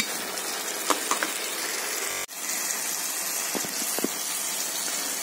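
Tomato and onion masala frying in a pan, a steady sizzling hiss as the tomatoes release their juice and cook down, with a few light clicks. The sound cuts out briefly a little over two seconds in.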